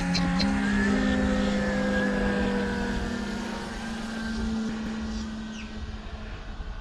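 Electric motors and propellers of two Flex RV-8 60E radio-controlled planes flying overhead: a steady droning hum of several pitches that slowly drops in pitch and fades a little as they pass.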